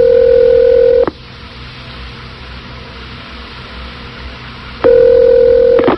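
Telephone ringback tone over the phone line: a steady ring that stops about a second in and rings again near the end, with line hiss in between. It is the cadence of a North American ring, the called phone ringing on a redial.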